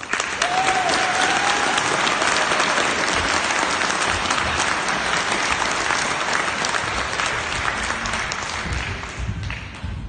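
Audience applauding: a burst of clapping that starts suddenly and dies away near the end.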